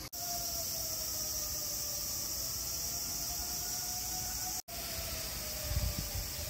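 A distant siren wailing slowly up and down over a steady high-pitched insect drone. The sound drops out briefly twice.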